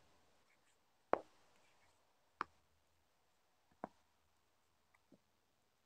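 Paperback novels being handled and swapped one after another: four sharp taps about a second and a half apart, each fainter than the last.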